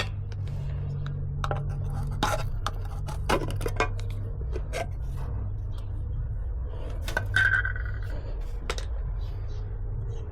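Small metal pieces and tools clinking and knocking as they are handled, with a short ringing clink about seven and a half seconds in, over a steady low hum.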